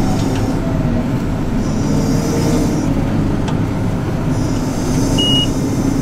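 Case IH Axial-Flow 7088 combine harvester's diesel engine and drivetrain running steadily at road speed, a dense low rumble, with a short high beep about five seconds in.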